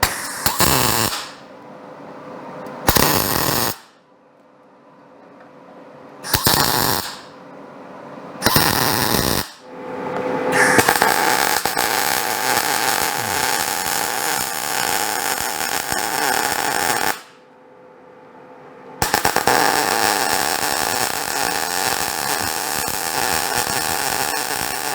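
Electric arc welding on 1/4-inch steel: four short crackling bursts as the lever extension is tacked in place, then two longer steady runs of several seconds each as the weld beads are laid.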